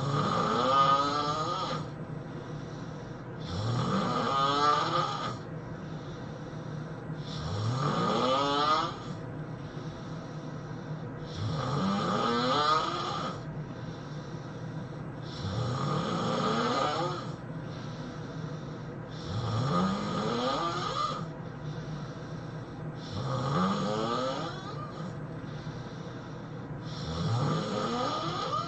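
A person snoring heavily and regularly, one snore about every four seconds, each snore rising sharply in pitch.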